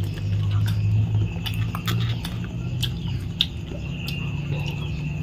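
Eating by hand from a plastic plate: fingers break up fried fish and rice, with scattered small clicks and chewing sounds. A steady low hum runs underneath, and a thin steady high tone sets in about a second and a half in.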